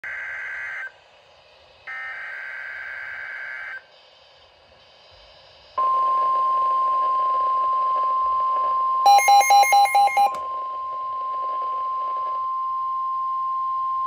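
NOAA Weather Radio alert on a Midland S.A.M.E. weather alert radio. It opens with the screechy SAME digital header bursts, twice. After a short pause, the steady 1050 Hz warning alarm tone starts, and about halfway through it the radio's own alert sounds a quick series of about six loud beeps.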